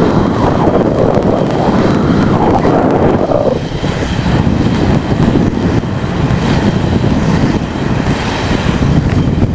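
Wind rumbling on the microphone of a camera moving fast over asphalt, mixed with the rolling noise of wheels on the road. It is loud and steady, easing a little about three and a half seconds in.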